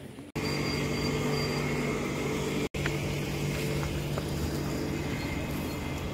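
A vehicle engine running steadily with a low, even hum. It comes in abruptly about a third of a second in and is broken by a momentary gap near the middle.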